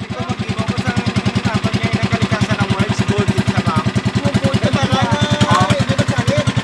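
Small boat's engine running steadily with a rapid, even chugging beat.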